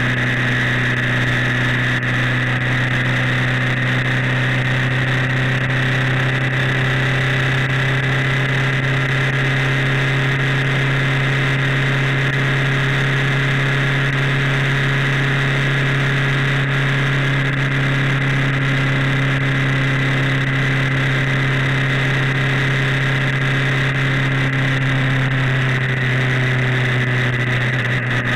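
The filming vehicle's engine droning steadily at an unchanging cruising speed, mixed with a constant rush of wind and wet-road noise.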